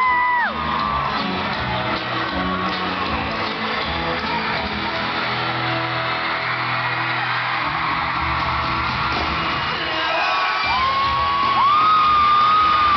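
Live pop-rock band playing in an arena, with the crowd of fans screaming over the music; long shrill screams at the start and again from about ten seconds in, when it gets louder.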